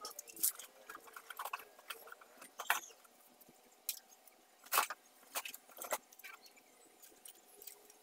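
Irregular small clicks, taps and short scrapes of handwork, the loudest about five seconds in, over a faint steady hum.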